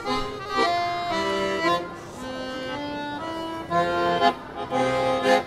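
Accordion playing a tune in held chords that change every second or so, with a few short, sharply accented chords near the end.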